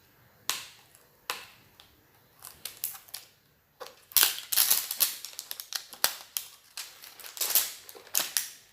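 Plastic toy packaging being handled and pried open: scattered sharp clicks at first, then from about halfway a dense run of crinkling and clicking.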